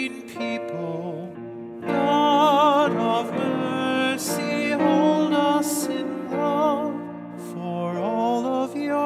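A woman singing a hymn with a wide vibrato to grand piano accompaniment.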